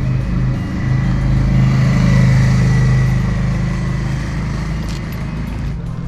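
A motor vehicle passing close by on the street, its engine growing louder to a peak about two seconds in and then fading away.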